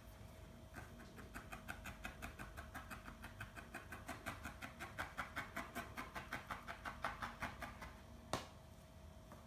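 Felting needle stabbing repeatedly into wool over a foam pad, a crisp poke about six times a second that starts about a second in, builds a little, and stops near the end. A single sharp click follows shortly after.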